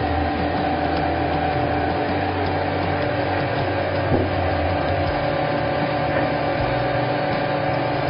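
Vacuum glass lamination machine running mid-cycle: a steady mechanical hum from its vacuum pump, holding the same pitch throughout.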